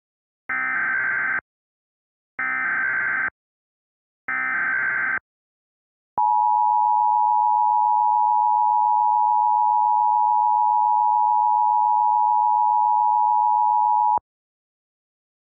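Emergency Alert System tones heard as a new alert begins. First come three short bursts of SAME header data tones, under a second each and about two seconds apart. Then the two-tone attention signal follows: a steady dual tone held for about eight seconds before it cuts off sharply.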